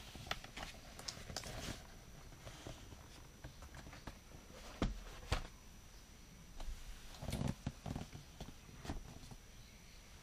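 Large cardboard toy box being handled and turned around on a table: scattered taps and scrapes, with two sharp knocks about five seconds in and a short scraping rustle a couple of seconds later.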